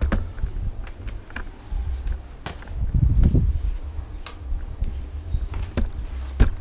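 Scotch-Brite flat mop being pushed across a tiled floor, heard through a camera on the handle as a low rumble of handling noise. About half a dozen sharp clicks and knocks come from the mop head and handle, with a louder scrubbing patch about three seconds in.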